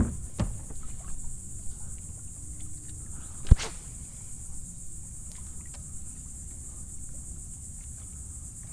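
Steady high-pitched buzz of insects over low wind noise, broken by a few sharp knocks: two right at the start and a louder one about three and a half seconds in.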